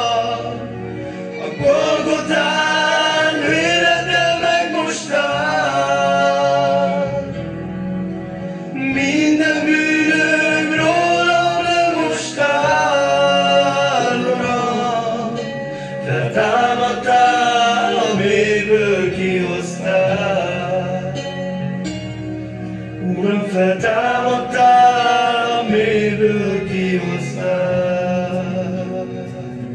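Men singing a Christian gospel song into a microphone, with long held, gliding notes over a steady low accompaniment.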